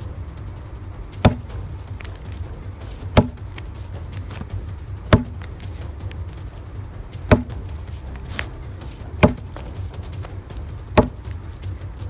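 A Cold Steel 4 Max folding knife stabbed point-first into a thick stack of copy paper six times, one sharp thud about every two seconds, in a piercing test. A steady low rumble runs underneath.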